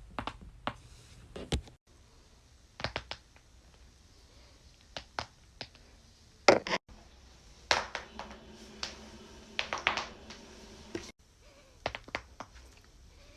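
Neck joints cracking during chiropractic neck adjustments: a series of short, sharp pops and cracks, some in quick clusters, the loudest about six and a half seconds in.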